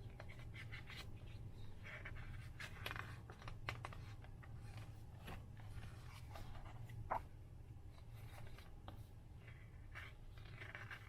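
Faint rustling and brushing of paper as the pages of a hardcover book are turned and handled, with a light tick about seven seconds in, over a low steady hum.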